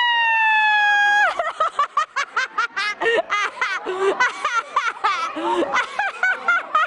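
A long high-pitched squeal, falling slightly in pitch, cut off after about a second, then rapid bursts of laughter from people at the game.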